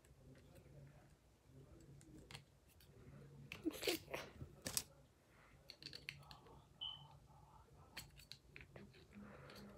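Faint clicks and scrapes of hands handling and adjusting the finger blades of a homemade Freddy Krueger claw glove, with a cluster of louder clicks about four seconds in.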